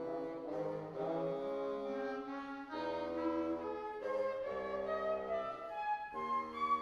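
Youth chamber ensemble playing a slow passage of held chords that change about once a second, with brass and woodwind tone.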